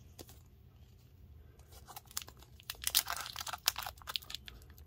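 Plastic foil wrapper of a hockey trading-card pack being torn open by hand, crinkling in quick bursts. It starts about two seconds in and is loudest about three seconds in.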